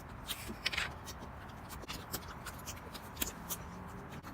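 Slime being handled and squished by hand, giving irregular small sticky clicks and crackles, with a brief louder squelch a little under a second in.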